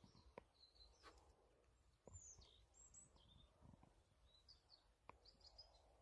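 Faint birds chirping outdoors, short high calls and downward slurs in two clusters, with a few scattered footsteps crunching on stony ground and dry leaves.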